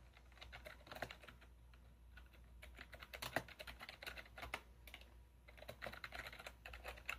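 Computer keyboard keys clicking quietly in several short runs of typing, as a terminal command and then a password are entered.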